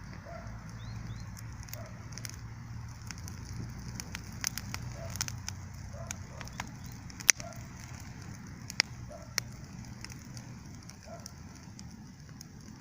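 Wood campfire crackling, with irregular sharp pops; the loudest snaps come about seven and nine seconds in.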